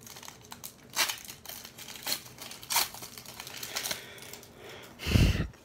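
Foil wrapper of a 2015 Panini Gridiron Kings football card pack crinkling as it is torn open, with the cards rustling as they slide out and are handled, in scattered crackly rustles. A louder muffled thump comes near the end.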